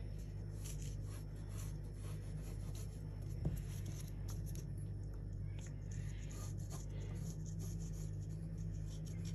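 Pencil tracing around a paper envelope template: a faint scratchy scraping of pencil on paper, over a steady low hum.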